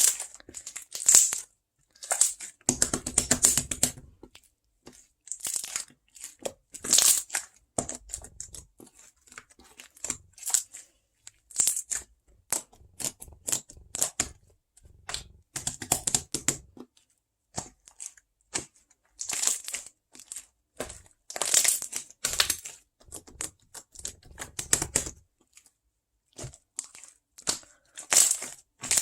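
Close-miked crinkling and tearing in irregular bursts of a second or so, with short pauses between them.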